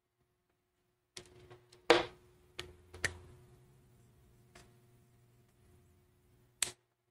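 Whiteboard marker tapping and knocking against the board while drawing, a series of sharp clicks with the loudest about two seconds in, over a faint steady hum.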